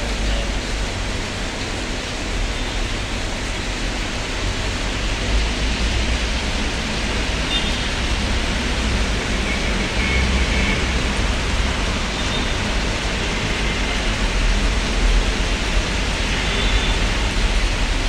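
Heavy rain falling on a flooded street, a steady hiss with a low rumble underneath.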